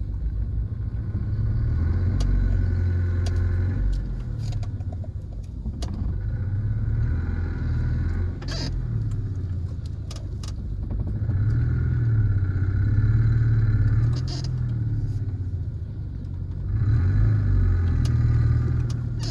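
A car engine pulling under load, heard from inside the cabin, with four swells in revs and a few sharp knocks. The knocks are the lowered car's underside striking the ground as it is driven over a slope.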